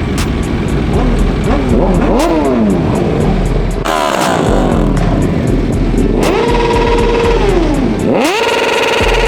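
Several motorcycles and cars revving and accelerating away one after another, their engine notes rising and falling over each other, with stretches where an engine holds steady revs.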